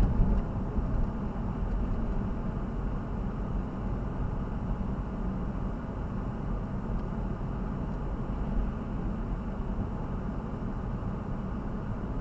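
Steady low rumble of a vehicle in motion, with no distinct events.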